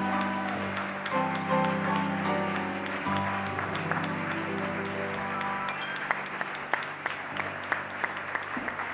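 Live dance band playing a short walk-on tune of held notes over audience applause. The music dies away about six seconds in, leaving the clapping.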